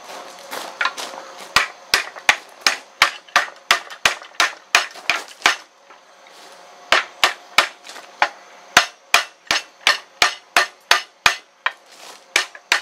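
Blacksmith's hand hammer striking red-hot steel on an anvil, one sharp blow after another at about three a second, with a short pause about halfway through. The steel is a horseshoe rasp being forged and rolled over into a tomahawk eye.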